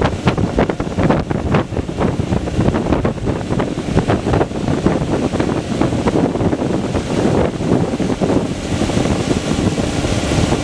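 Wind buffeting the microphone aboard a motorboat under way, over the rush of water and the boat's wake.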